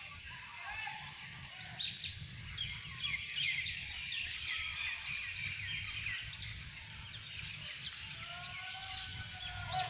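Many small birds chirping and twittering in quick, overlapping calls, over a steady low rumble. A few lower, drawn-out calls come in near the end.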